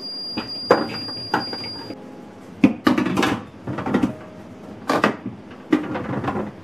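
Household things being handled and set down: a string of short knocks and clatters. A thin, high steady tone sounds through the first two seconds and then stops.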